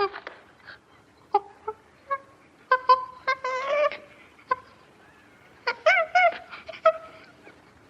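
A farm animal or bird giving a series of short, pitched calls, some rising and falling, with scattered clicks between them.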